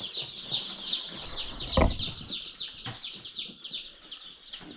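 A crowd of newly delivered baby chicks peeping continuously, many short high peeps overlapping several times a second. A single thump about two seconds in is the loudest sound.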